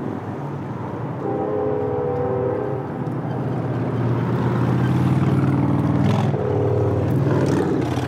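A dubbed-in combustion-engine sound effect, a motor vehicle running, laid over electric scooters as a joke rather than their real sound. It grows louder about halfway through.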